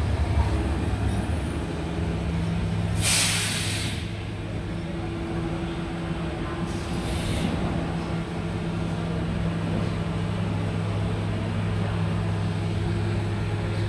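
Athens Line 1 8th-generation electric train coming to rest and standing at the platform, its onboard equipment giving a steady low hum. A loud hiss of released compressed air lasts about a second, starting about three seconds in, and a shorter, fainter hiss follows around seven seconds in.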